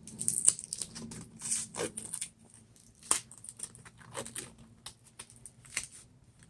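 Velcro wristband strap being pulled, threaded and pressed: irregular scratchy rasps of hook-and-loop and small plastic clicks, the loudest rasp about half a second in.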